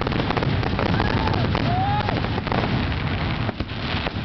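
Fireworks crackling densely, many small pops and crackles overlapping into a continuous sizzle, with two short whistles about one and two seconds in.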